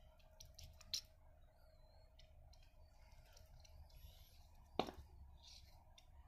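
Near silence with a faint steady hum and a few faint clicks of parts being handled; about five seconds in, one sharper light metal knock as a stainless steel digital caliper is brought against a piston.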